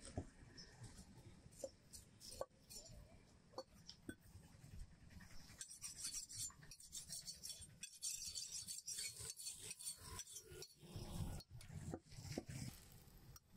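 Knife working through goat leg and head meat: scattered light knocks and clicks, with a stretch of rasping scraping about halfway through.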